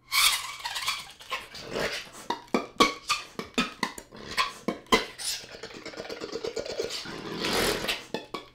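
Piccolo played with extended, mostly non-pitched techniques: a fast stream of sharp percussive attacks and breathy air sounds with a few short pitched notes, building to a long loud rush of air near the end.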